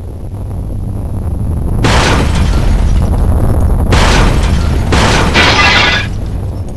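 Deep earthquake rumble, a sound effect that swells over the first couple of seconds. Three bursts of crashing noise come through it, about two, four and five seconds in.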